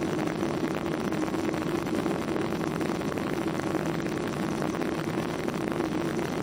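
Steady drone of a Boeing 737-800's CFM56-7B jet engines mixed with rushing air, heard from inside the passenger cabin, with a constant low hum running under the hiss.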